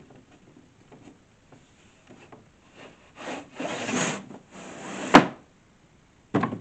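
Wooden panel of a flat-pack storage cabinet sliding down its grooves with a scraping rub lasting about two seconds, ending in a sharp knock as it goes in; another knock comes near the end.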